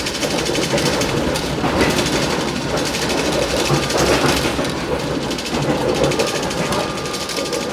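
Steady rumble of a moving train heard from inside a 2016 INKA-built executive (K1) passenger coach, its wheels running on the rails.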